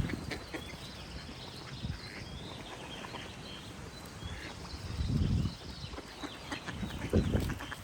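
Small songbirds chirping and singing over a steady outdoor background, with two louder low bursts about five and seven seconds in.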